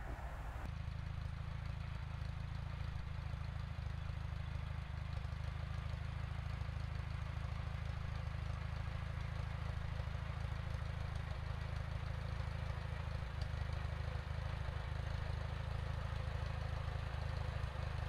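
An engine idling steadily, an even low running sound that stays the same throughout.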